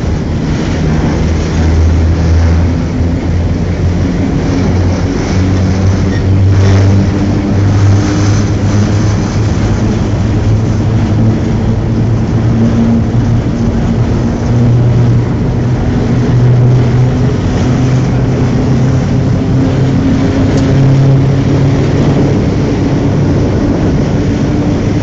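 Locomotive running at speed, heard from on board: a steady low engine drone whose pitch drifts slowly, over a constant rush of wheel, rail and wind noise.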